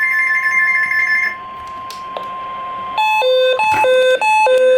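Weather-radio emergency alert tones. A steady single-pitch warning tone plays, with the screech of digital header data over it for the first second or so. About three seconds in, a loud alarm starts that switches between a high and a low tone about twice a second.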